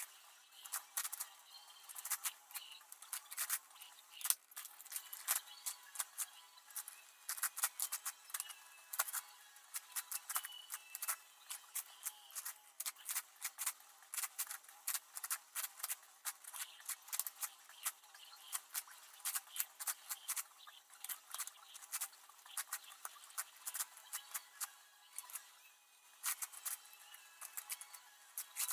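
Plastic layers of an 11x11x11 puzzle cube clicking and clacking as they are turned rapidly by hand, in quick irregular runs of clicks.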